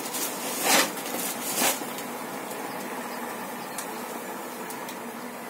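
Honeybees from an opened hive buzzing in a steady hum, with two short rustles within the first two seconds.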